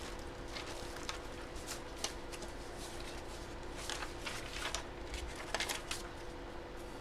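Handling noise: scattered short clicks and rustles, bunched into a few clusters, over a faint steady hum.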